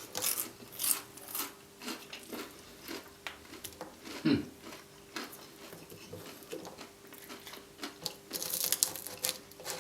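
Close-miked chewing and crunching of a hard taco shell filled with roast chicken. It comes as scattered wet clicks and crackles, with a denser burst of crunching near the end.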